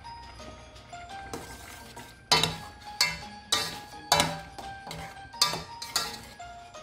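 A spoon stirring dried fruit simmering in orange juice in a stainless steel saucepan, knocking against the metal pan in a string of sharp clinks from about two seconds in. Soft background music plays under it.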